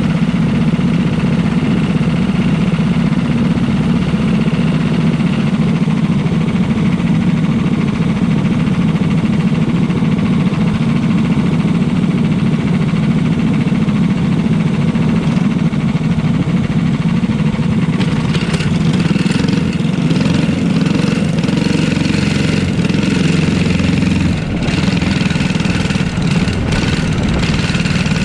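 Small single-cylinder engine of a racing kart idling steadily right by the microphone; about two-thirds of the way through the note brightens and picks up as the kart pulls away.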